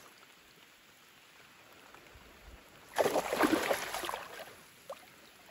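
A large carp caught in a gill net thrashing at the surface beside a wooden boat, a burst of splashing starting about three seconds in and lasting about a second and a half. Light rain patters on the water throughout.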